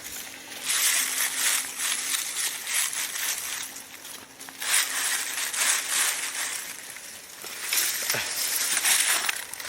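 Footsteps crunching and scraping on loose gravel and dry leaves during a steep climb, in three spells of a couple of seconds each.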